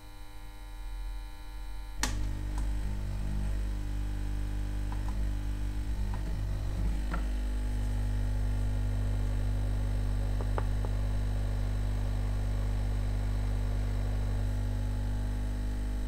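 A click about two seconds in as electrical bench equipment for desoldering switches on, then a steady electrical mains hum that shifts slightly in tone around seven seconds in.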